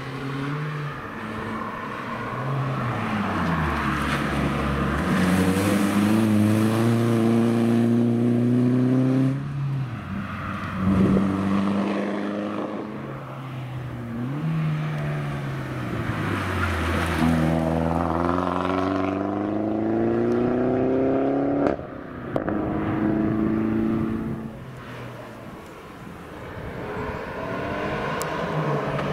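Peugeot 206 rally car engine accelerating hard up a stage, its pitch climbing in long sweeps with a break at each upshift. The engine note drops off suddenly about two thirds of the way through, goes quieter, then rises again near the end.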